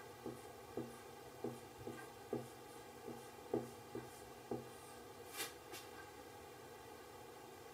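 Whiteboard marker writing on a whiteboard: a run of soft taps about twice a second as the strokes of the characters go down, then a brief scratchy stroke about five seconds in.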